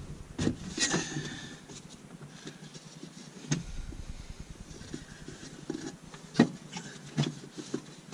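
Hands unplugging the fuel pump and sender unit wiring connectors under a Honda Civic's fuel tank access plate: scattered sharp clicks and knocks with low handling noise between them, the loudest knock about six and a half seconds in.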